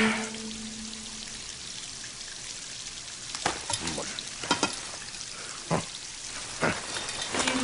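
Water spraying with a steady hiss from a broken-open tap, with about half a dozen sharp knocks and clanks in the second half.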